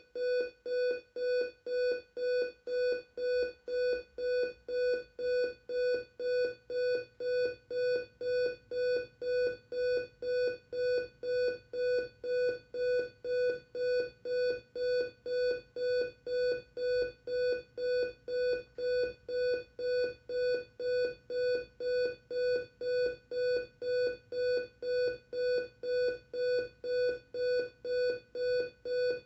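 Capello CR-22 clock radio's buzzer alarm going off: a buzzy beep repeated evenly about twice a second, at a steady pace.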